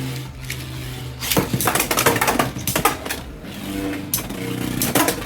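Two Beyblade X spinning tops, Hells Chain and Black Shell, clashing in a plastic stadium: rapid clattering hits, thickest from about one and a half to three seconds in, with a few more sharp hits near the end.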